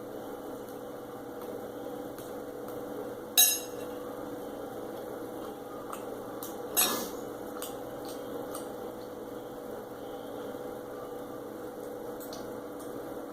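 Cutlery knocking against a plate while eating: two sharp clinks about three and a half seconds apart, with a few fainter ticks, over a steady background hum.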